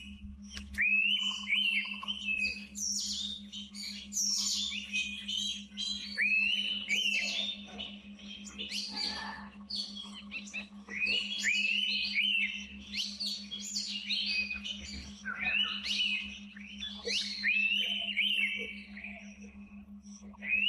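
Forest birds singing and calling together, overlapping whistled notes and many quick high chirps, under a faint steady low hum.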